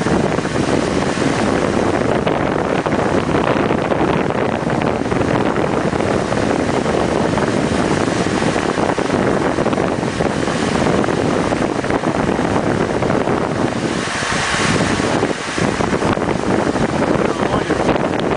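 Wind buffeting the microphone at the bow of a moving ship: a steady, loud rushing noise, with a hissier gust about fourteen seconds in.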